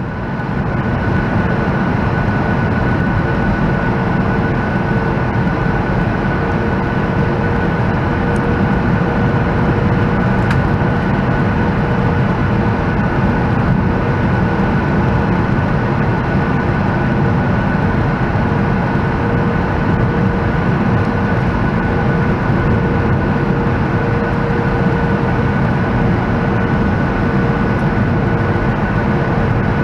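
Steady cabin noise inside a Boeing 737-900ER: the CFM56 engines and airflow over the fuselage, with two faint steady hums, unchanged in level throughout.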